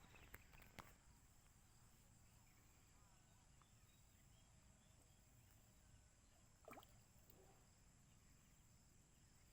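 Near silence: faint outdoor background hiss with a thin steady high tone, a couple of soft clicks in the first second and one faint brief sound about two-thirds through.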